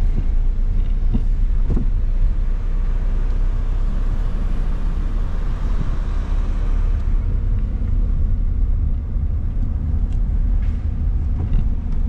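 Steady low rumble of a car being driven on town roads: engine and tyre noise heard from inside the cabin.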